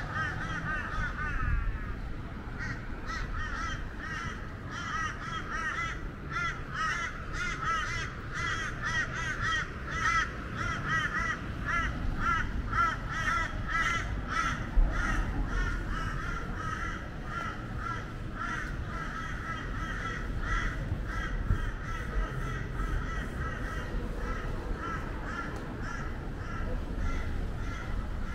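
Birds calling in a dense, continuous chorus of short repeated calls.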